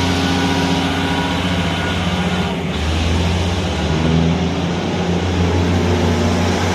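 Diesel multiple-unit train passing close by, its underfloor diesel engines running with a loud, steady low drone that steps up in pitch about two and a half seconds in.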